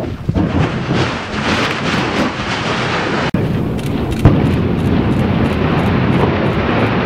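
Volcano erupting: a loud, steady roar with a sharp bang about four seconds in.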